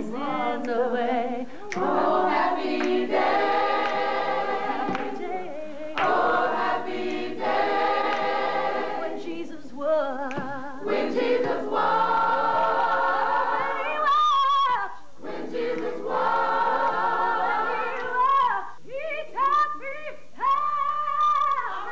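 Several voices singing together a cappella in close harmony, with wavering vibrato on held notes and a couple of short breaks between phrases.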